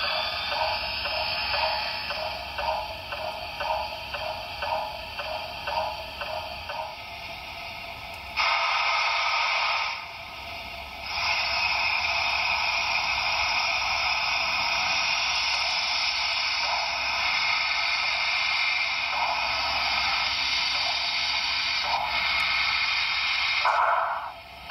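HO scale model steam locomotive's sound, heard thin through a small onboard speaker. It chuffs in an even rhythm of about two beats a second for several seconds, then a loud, steady hiss starts suddenly about eight seconds in and runs, with one short break, until near the end.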